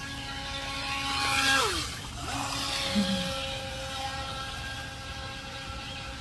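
Force1 Velocity H102 RC speedboat's motor whining steadily at speed. About a second and a half in it runs close by: it grows loud with a rush of hiss, and its pitch drops as it passes.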